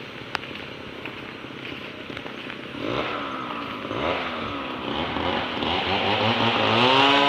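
Small engine revving up and down repeatedly, getting louder over the last four seconds, after a few seconds of low steady background noise with a single click.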